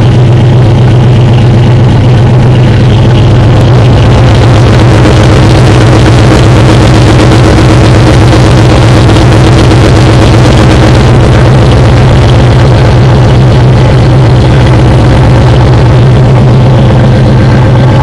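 1998 Jeep Grand Cherokee's 5.2 L Magnum V8, bored out to 5.3 L, idling on a cold start through long-tube headers, no catalytic converter and a full 3-inch exhaust with a Flowmaster Super 44 muffler. Heard close to the tailpipe, it is a loud, steady idle with no revving.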